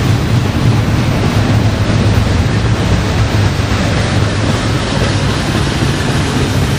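Double-stack container well cars of a BNSF intermodal freight train rolling past: a steady, deep noise of steel wheels on the rails.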